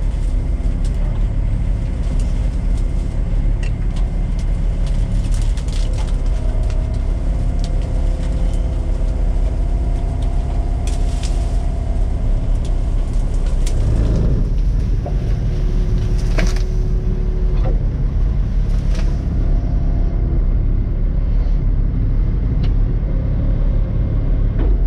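Komatsu excavator's diesel engine running steadily as the machine works, with its tone shifting now and then and scattered sharp clicks.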